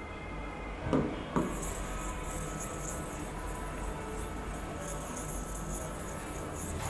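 Two light taps about a second in, a hand touching the interactive touchscreen board, followed by a steady faint hiss and a thin steady tone of room noise.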